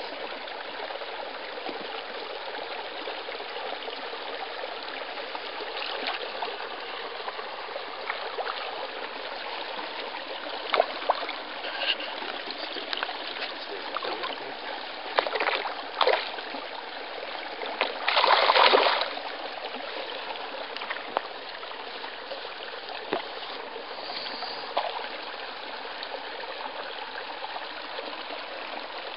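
Tiny shallow stream trickling steadily over a mossy bed, with a few brief louder bursts, the longest lasting about a second a little past the middle.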